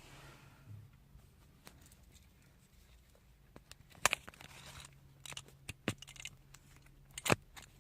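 Paper fast-food wrapper or bag being handled and torn open: scattered crinkles and sharp clicks, the loudest a little after four seconds and near the end, over a faint steady low hum.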